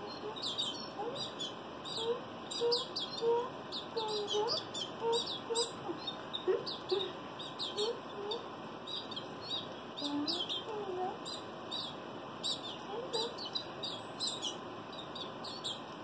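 Young canaries chirping over and over in quick short high calls, begging as they are hand-fed.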